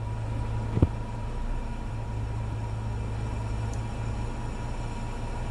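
Car idling with the air conditioning and blower running: a steady low hum carrying a faint, steady whistle, which the mechanic puts down to a refrigerant leak at the evaporator. A single knock sounds about a second in.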